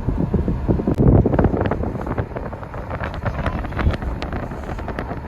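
Wind buffeting the microphone, a rough rumbling noise with frequent crackles.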